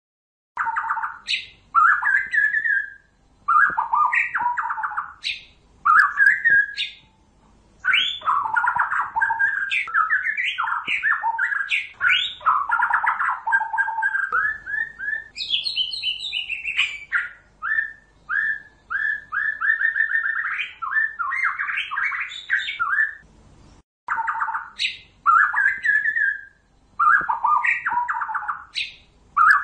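White-rumped shama song: fast, varied phrases of whistled and chattering notes, given in bursts with short pauses, used as a lure recording for trapping shamas. About twenty-four seconds in, the opening phrases repeat, as the recording loops.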